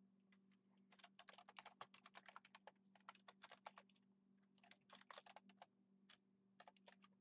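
Faint typing on a computer keyboard in quick runs of keystrokes, three main runs and then a few single keys near the end, over a steady low hum.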